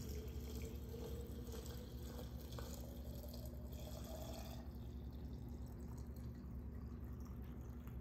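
Hot syrup being poured into a glass canning jar of apples, a faint trickle whose pitch rises slowly as the jar fills, stopping about four and a half seconds in. A steady low hum runs underneath.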